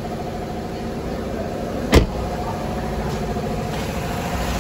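Mercedes-Benz petrol engine idling smoothly and evenly, its misfire gone with a known-good replacement ECU fitted in place of the faulty one. A single sharp click about two seconds in.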